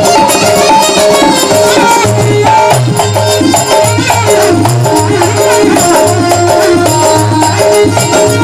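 Instrumental interlude of a live Rajasthani folk bhajan: a stepping melody over a pulsing bass line and steady percussion, with no singing.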